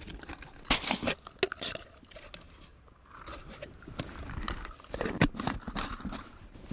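Close handling noise as a caught walleye is dealt with at the water's edge: a run of sharp clicks and scrapes of hands and gear near the microphone, a short lull, then another cluster of clicks.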